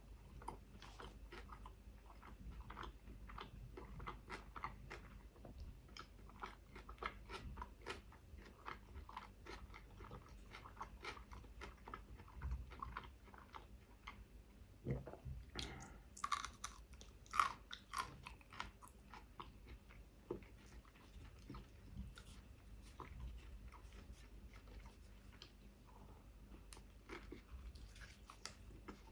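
Close-miked chewing of a chicken shawarma wrap: quick wet, crunchy clicks of mouth and food, louder about halfway through.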